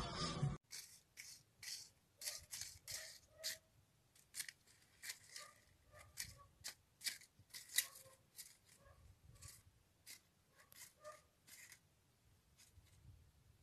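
Guitar music cuts off about half a second in, followed by light, irregular clicks and taps, two or three a second, which fade out near the end. These are the sounds of a kitten moving and playing on a laminate floor.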